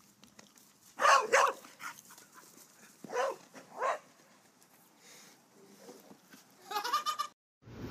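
Small dog giving high, excited yelps as it runs: two about a second in, two more a few seconds later, and a wavering, drawn-out one near the end.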